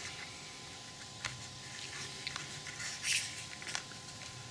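Quiet handling of a card model building front: a few small clicks and taps, and a brief papery rustle about three seconds in, over a faint steady hum.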